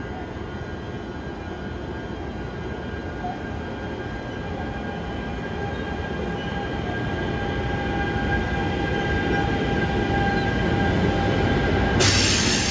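New Jersey Transit passenger train approaching and passing at station speed, led by an Armed Forces tribute locomotive: a steady rumble with a faint whine, slowly growing louder. Near the end, a sudden rush of hissing noise as the locomotive comes alongside.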